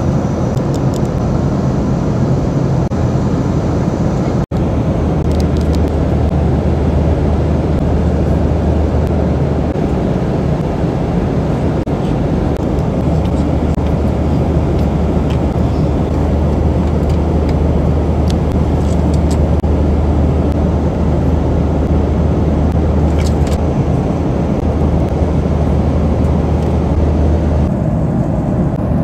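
Steady, loud drone of an airliner cabin in flight, the noise of the engines and rushing air, with a low hum beneath. It cuts out for an instant about four and a half seconds in.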